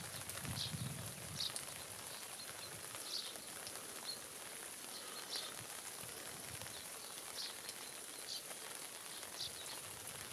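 Steady hiss of rain, with a small bird giving short high chirps every second or two.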